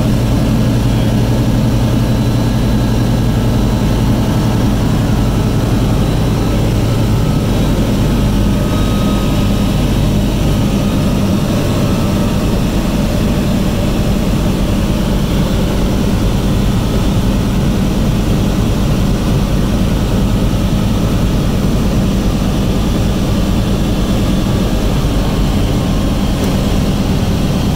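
Single-engine propeller airplane's engine and propeller droning steadily, heard from inside the cockpit with a constant rush of air noise. The engine note shifts partway through.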